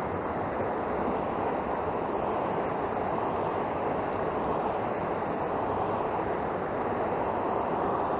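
Steady rush of a fast mountain river running over rocks and rapids.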